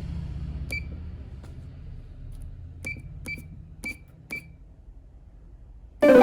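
Five short electronic beeps, like key presses on a wallpaper pasting machine's control panel, over a low hum that fades away. Near the end, a brief loud burst of music.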